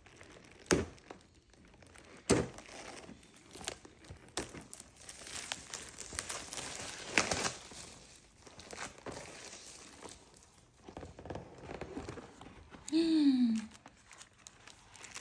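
Crinkling and tearing of chocolate wrappers, with a few sharp knocks in between. Near the end comes a short pitched sound that falls in pitch.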